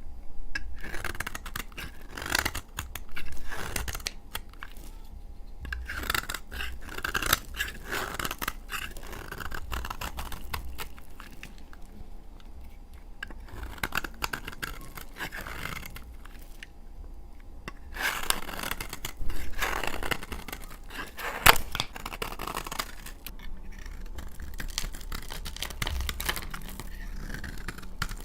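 Dry laundry soap being cut with a blade: a run of uneven, crunchy scraping strokes with short pauses between them, and a single sharp click about three-quarters of the way through.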